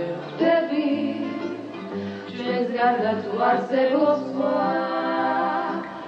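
Music with singing voices holding long notes, several pitches sounding together like a small choir.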